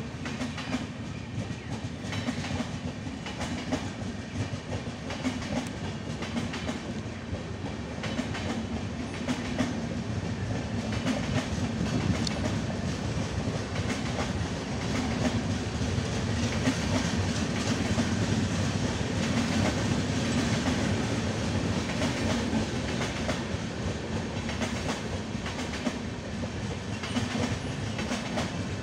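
Indian Railways passenger coaches rolling past: a steady rumble of steel wheels on rail, with a continual clickety-clack of wheels striking the rail joints. It is a little louder through the middle of the passage.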